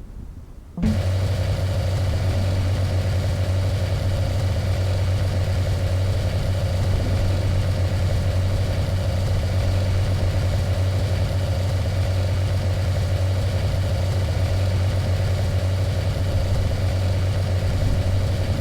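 Vehicle engine running at a steady idle: a constant low hum under a noisy hiss, with no revving. It cuts in suddenly about a second in and cuts off just as suddenly at the end.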